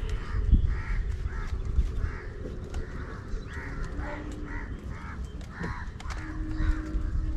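Crows cawing over and over, a steady run of short harsh calls about two a second.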